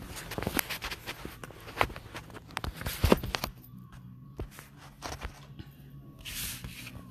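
Handling noise from the phone and tools on the work table: a quick run of clicks, knocks and rubbing, loudest about three seconds in, then a short hiss near the end, over a low steady hum.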